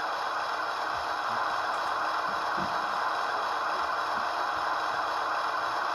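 Sound decoder of an Athearn Genesis ES44DC model locomotive playing a steady diesel idle through its small speaker, with a few faint knocks and rattles of handling.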